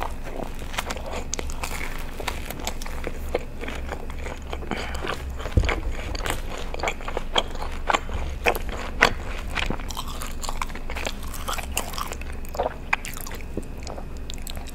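Close-miked eating of a garlic breadstick dipped in ranch: a bite, then chewing with many sharp wet mouth clicks and smacks.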